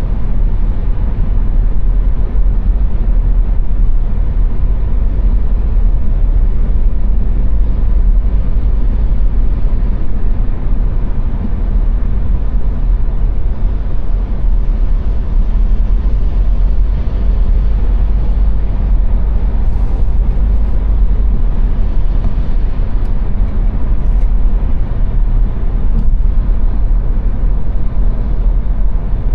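Car cruising at motorway speed: a steady, deep road and tyre rumble with engine drone, unchanging throughout.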